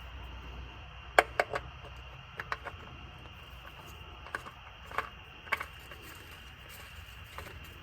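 Scattered small clicks and taps, in a few quick clusters, from handling parts and tools while spinning a new oil filter onto the engine, over a steady background hiss.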